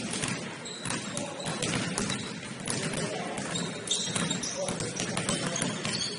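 Sounds of a basketball game on a gym court: the ball bouncing with many quick knocks, short high squeaks, and players' indistinct voices.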